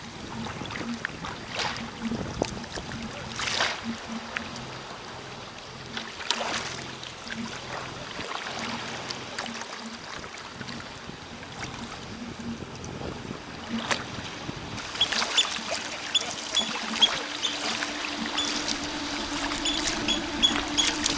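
Water splashing and lapping around a sea kayak, with soft background music underneath that grows more prominent about fifteen seconds in, when a repeating high ticking beat joins.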